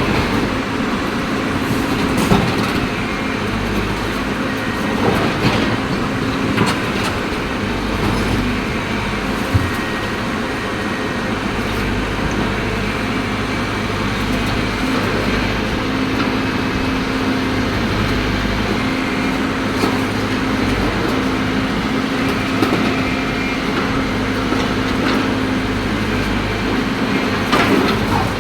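Caterpillar excavator's diesel engine running steadily under working load, with a few sharp knocks and cracks of concrete being broken scattered through.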